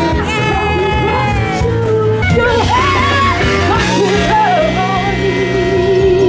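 Live pop band playing, with a woman singing the melody over bass, guitar, keyboard and drums; from about four seconds in she holds a long note with vibrato.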